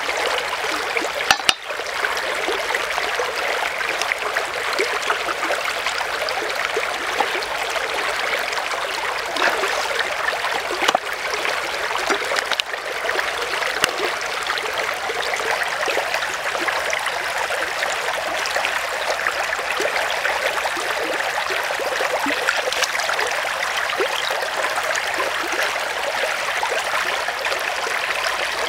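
Shallow stream running over rocks with a steady rushing trickle, and a couple of sharp clicks about a second and a half in.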